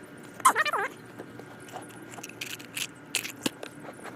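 Items being handled and rummaged through: scattered clicks, scrapes and rustles. A brief wavering pitched sound comes about half a second in.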